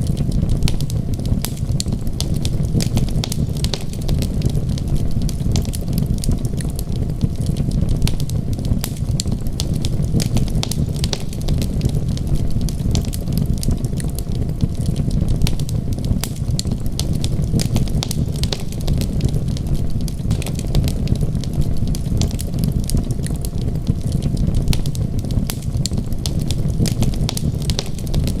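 Wood fire crackling, with many small sharp pops over a steady low rumble.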